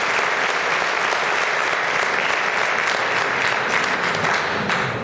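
Audience applauding: many hands clapping together, starting to fade right at the end.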